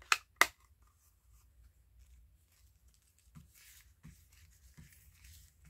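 Two sharp plastic clicks as an ink pad's case is snapped open, then soft dabbing and rubbing of the ink pad on paper, with three light taps.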